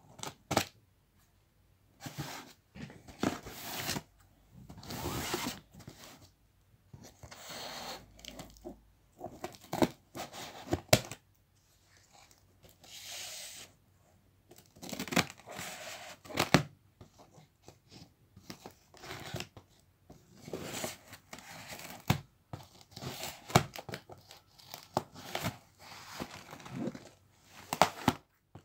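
Scissors cutting through brown packing tape on a cardboard box: tape tearing and blades scraping on cardboard, in many short irregular bursts with sharp clicks.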